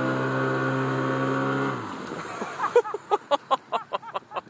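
Small tiller-steered outboard motor running steadily at full throttle while towing a water skier, then stopping abruptly just under two seconds in. A quick run of short, sharp sounds follows.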